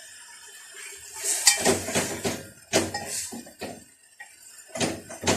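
Metal cooking pots and utensils clinking and clanking on a gas stove while kale stews: a few separate knocks and clinks, the first cluster about a second and a half in, more near the middle and just before the end.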